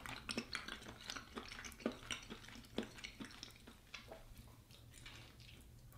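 A person chewing a bite of tender chicken from coconut soup: faint, irregular wet clicks and smacks, thinning out after about four seconds.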